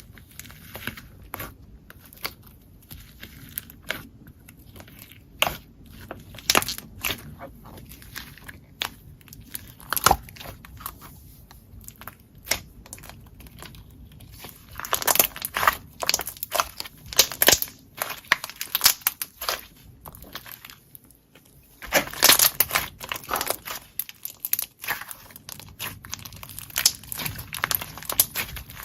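Slime being pressed and squeezed by hand, giving irregular crunchy crackles and pops, thickest in runs about halfway and again about two-thirds in.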